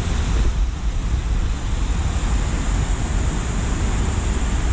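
Steady low rumble and hiss of a vehicle driving a rough gravel road, heard from inside the cab, with some wind noise mixed in.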